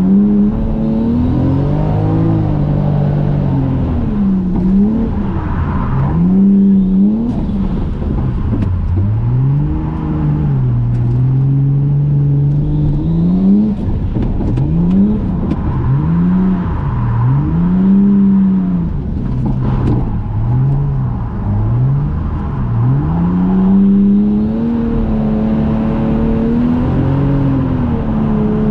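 Toyota Mark II JZX100's straight-six engine, heard from inside the cabin while drifting, its revs rising and falling over and over as the throttle is worked through the slides. It holds steady for a few seconds twice.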